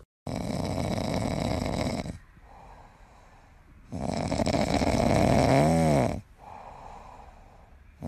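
Sleeping domestic cat snoring: two long, loud snores about four seconds apart, each followed by a quieter breath. The second snore ends with a brief wavering pitched tone.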